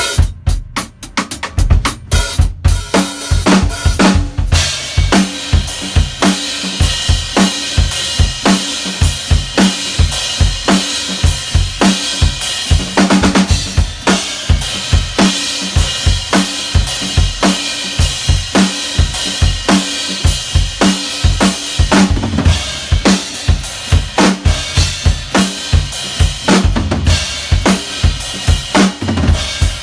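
Gretsch Catalina Club drum kit played in a steady beat, with bass drum, snare and continuously ringing cymbals. A few separate hits come first, then the full groove starts about two and a half seconds in.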